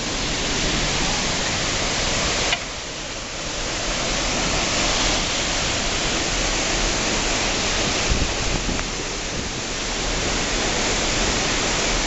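Waterfall in heavy flow: a steady roar of falling water and spray. It drops abruptly about two and a half seconds in, then builds back.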